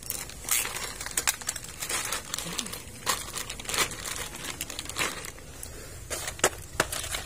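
Plastic packaging crinkling as it is handled: an irregular run of sharp crackles and clicks.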